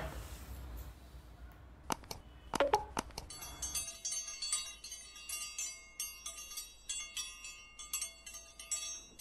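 A few sharp metallic clacks as cast aluminium pump heads are handled. Then, from about three seconds in, a bright tinkling chime effect: many quick, high ringing notes that run on through the rest.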